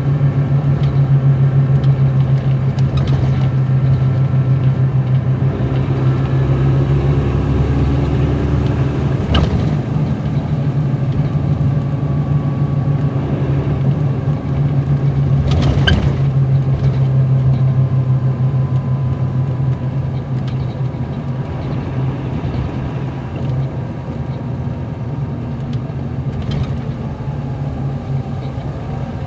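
Caterpillar C13 ACERT diesel engine of a 2007 MCI D4500CL coach, heard from inside the bus, running with a steady low drone while the bus is under way. Two sharp knocks or rattles come through, about 9 and 16 seconds in.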